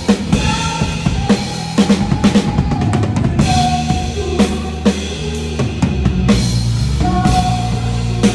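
Drum kit playing with the band in an instrumental passage: frequent kick and snare hits and cymbals over sustained bass and held chords.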